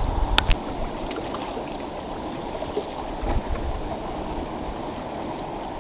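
Fast river water rushing steadily through the outflow below a low dam. About half a second in there are two sharp clicks.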